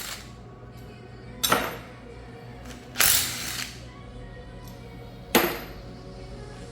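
Background music, with three sharp knocks about a second and a half, three and a half, and five and a half seconds in, each dying away over about half a second.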